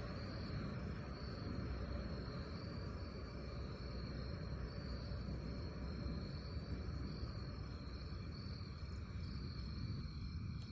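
Crickets or other insects trilling steadily in one constant high, slightly wavering note, over a continuous low rumble.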